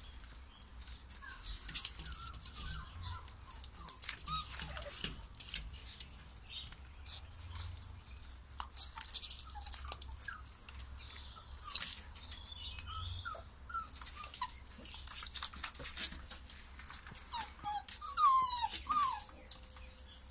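Six-and-a-half-week-old cockapoo puppies whimpering and yipping: short, high whines that come and go, with a louder run of them near the end.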